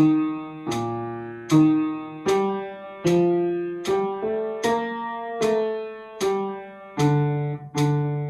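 A single line of notes played on an instrument, about a dozen in turn at a steady pace, each starting sharply and fading: the bass part of a hymn tune being played through for learning.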